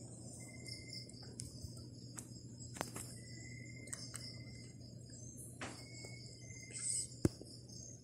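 Faint background of insects chirring: a steady high chirring with short, level, high-pitched notes that come and go. Under it runs a low steady hum, and there are a few sharp clicks.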